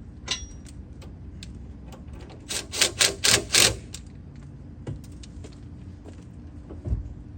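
A run of about five loud, sharp metallic clicks in quick succession, about three a second, from tool work on the car's body or battery fittings. A single click comes shortly before them, and a steady low hum sits underneath.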